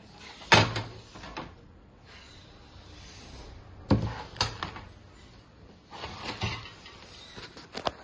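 Sheet-metal cover of a rack-mount fiber optic patch panel being slid off and set aside: three bouts of metal clatter and knocks, the loudest about half a second in.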